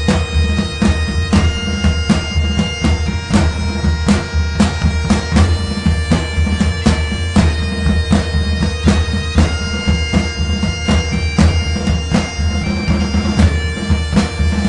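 Background music: bagpipes playing a tune over steady drones, with drum hits throughout.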